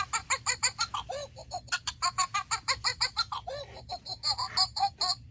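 Recorded monkey chattering played from a children's sound book: a fast run of high-pitched calls, about six a second.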